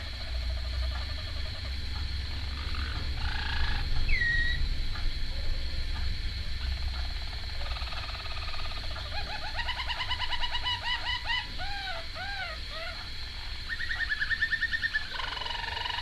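Harz Roller canary singing in separate rolling phrases: a rapid rolling trill, a run of dipping notes, then a fast even trill near the end, over a low background rumble.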